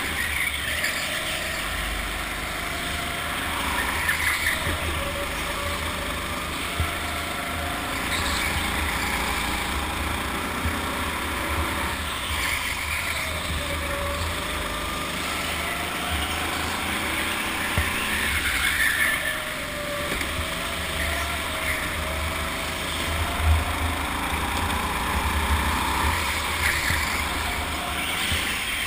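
Go-kart running at speed through corners, its motor's pitch rising and falling with the throttle, over heavy wind rumble on the onboard camera's microphone.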